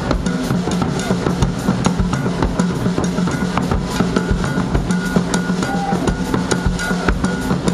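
Live Brazilian percussion: a large drum worn at the waist and a drum kit play a fast, busy rhythm of hits over a steady low note.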